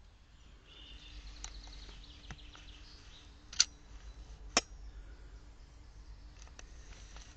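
Birds chirping outdoors, a short trill in the first few seconds, with two sharp clicks about a second apart near the middle that stand out as the loudest sounds. A faint steady hum runs underneath.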